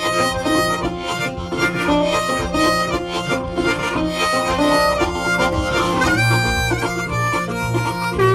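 Background music: a harmonica playing over acoustic guitar, in a blues-country style.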